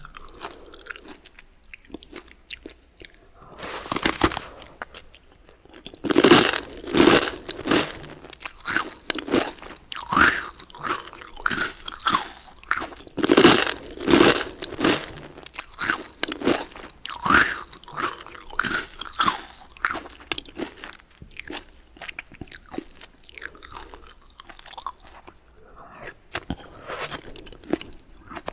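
Close-miked biting and chewing of crusty baguette bread: one crunchy bite about four seconds in, then a long run of crisp chewing strokes, about two a second, growing quieter near the end.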